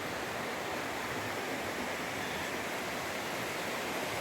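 Steady rushing of flowing water from a creek or waterfall, an even hiss with no change.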